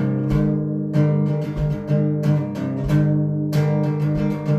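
Acoustic guitar strummed in a steady rhythm, an instrumental break between sung lines of a folk-style song.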